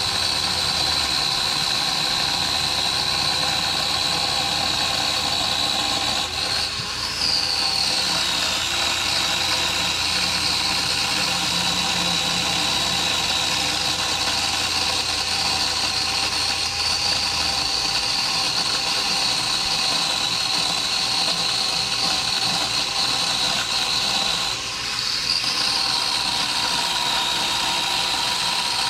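Small chainsaw running steadily with a high whine while cutting broken branches. The sound briefly dips and its pitch shifts twice, about a quarter of the way in and near the end.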